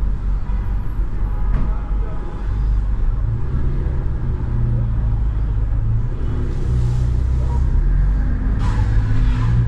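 Ferrari F8 Spider's twin-turbo V8 running steadily at low revs, a deep rumble without hard revving. A short hiss sounds near the end.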